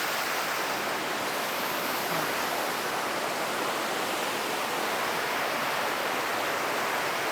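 Steady rushing of a large waterfall, the Tumpak Sewu falls, with its spray close by.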